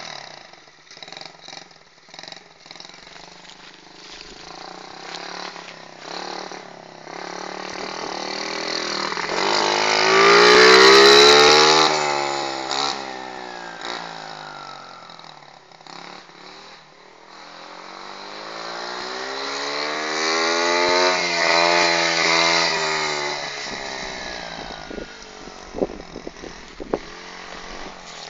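A 50 cc pit bike engine revving and easing off as the bike rides the dirt track, passing close twice: loudest about ten seconds in and again around twenty seconds in, its pitch rising and falling with the throttle, and fainter while the bike is away on the far side.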